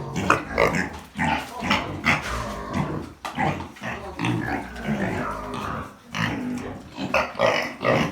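Pigs grunting and squealing in a pen: a busy run of short, irregular calls overlapping one another.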